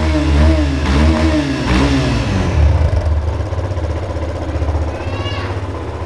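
Yamaha Fazer 250's single-cylinder four-stroke engine blipped three times in quick succession, pitch rising and falling each time, then settling back to idle. The engine is run to show a strange noise that mechanics have not agreed on a cause for.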